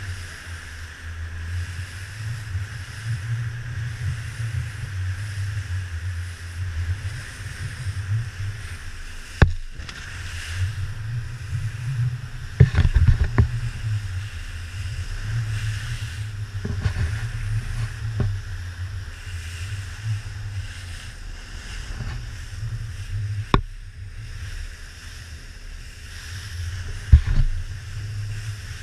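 Joker Clubman 21 rigid inflatable boat running through heavy waves: a steady low rumble with wind and water noise, broken by several sharp knocks.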